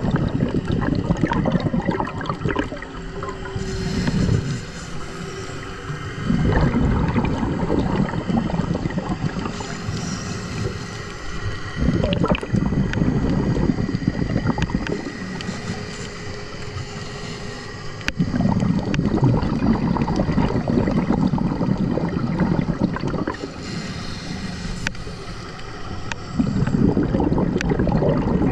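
Scuba diver breathing through a regulator underwater: long gurgling rumbles of exhaled bubbles alternate with quieter hissing inhales, a few breaths in all.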